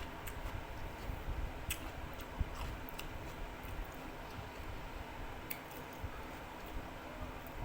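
Someone eating crisp kerupuk crackers: scattered small clicks and crunches over a steady low background noise.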